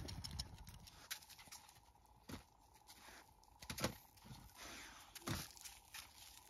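Hatchet chopping firewood on a wooden chopping block: three sharp knocks about a second and a half apart.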